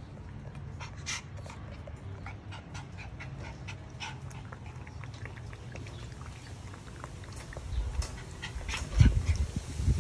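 Puppies eating dry kibble and lapping water from a metal bowl: a run of small, sharp crunches and clicks. A few louder low thumps come near the end.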